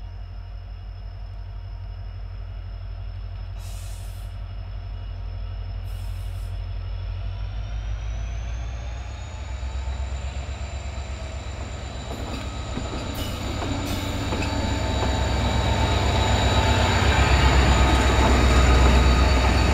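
WDP4D diesel-electric locomotive's 16-cylinder two-stroke EMD engine working under throttle as it hauls a long passenger train away from a stop: a deep, even throb that grows louder as it approaches, with a high turbocharger whine that rises in pitch about eight seconds in. Loudest near the end as the locomotive passes close by.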